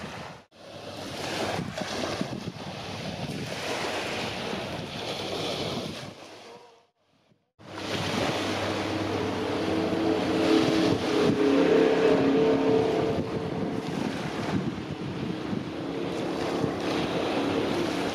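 Wind on the microphone and small waves at the shore, gusty and uneven, broken by a short silence about seven seconds in. After the break a steady droning hum sits under the wind and water.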